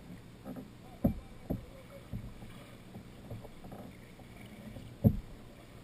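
Kayak being paddled on calm water: soft paddle strokes and water sounds, with several short, dull knocks, the loudest about five seconds in.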